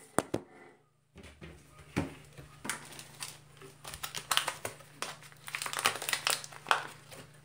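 Irregular crinkling and rustling handling sounds, many short scattered rustles and clicks, starting after a brief silent gap about a second in.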